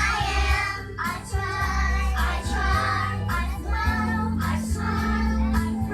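A song with singing over a bass line, the voices likely children's.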